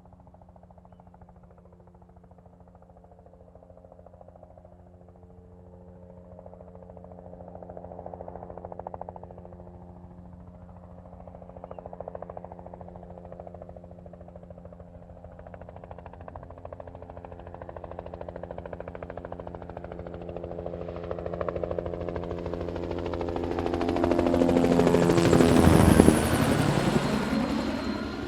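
Helicopter flying in from a distance, its rotor beat and engine growing steadily louder. It passes close by about 26 seconds in, with the pitch dropping as it moves away.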